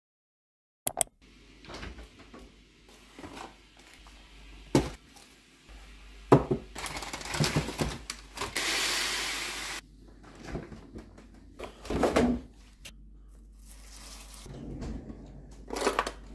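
Kitchen breakfast-making sounds: scattered knocks and clatter of a cereal box and bowl, then a rushing rattle of about a second and a half as chocolate rice cereal is poured into a bowl. Near the end comes a metallic rattle of cutlery as a spoon is taken from a drawer.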